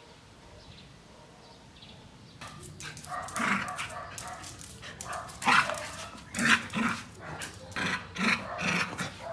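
Dog barking and yipping in short repeated calls, starting after about two and a half quiet seconds and growing louder about halfway through.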